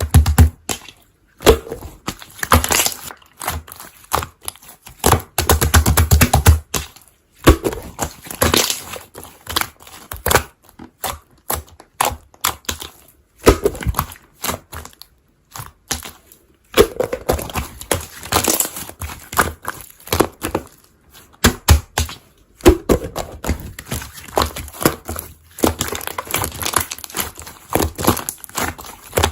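Slime being squeezed and pressed by hand, making dense crackling and clicking sounds in bursts of a few seconds with short pauses between them.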